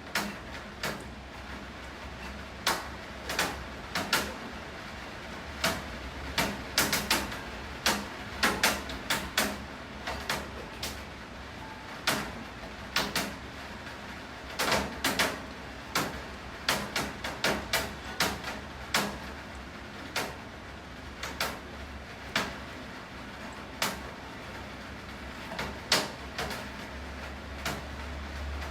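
Rain, with large drops falling onto a hard surface: irregular sharp taps, several a second, over a steady hiss of rainfall and a low steady hum.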